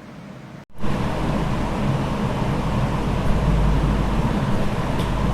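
Steady background noise with a low hum, starting after a brief dropout under a second in.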